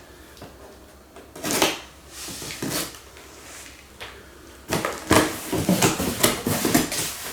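A cardboard box being opened and its parts handled: two brief scrapes or knocks, then a busier stretch of scraping and clunking from about two-thirds of the way in.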